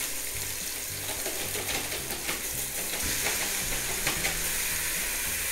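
Olive oil and minced garlic sizzling steadily in a hot Ninja Foodi inner pot on sear/sauté. A few short crackles of plastic wrapping come in the middle as a pack of ground beef is peeled open over the pot.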